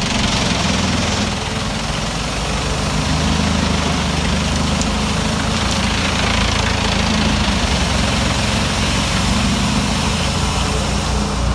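Heavy machine's engine running steadily, a continuous low drone with broad mechanical noise over it.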